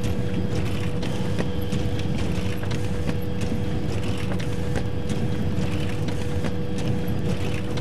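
Photocopier running: a steady motor hum with a recurring mechanical clicking and clatter.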